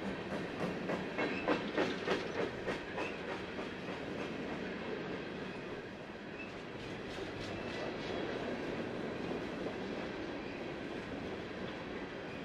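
Freight train of open-top hopper cars rolling past. There is a steady rumble, with quick runs of wheel clacks in the first few seconds, which are the loudest part, and again around seven seconds in.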